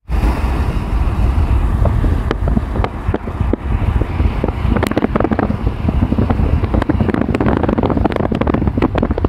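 Outdoor wind buffeting the microphone: a loud, heavy low rumble with many small clicks and pops scattered through it.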